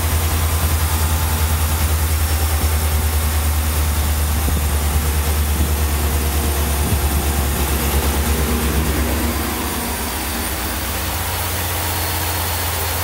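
2019 Ram 1500 Rebel's 5.7-litre Hemi V8 idling steadily, with a low pulsing rumble that gets slightly quieter about nine seconds in.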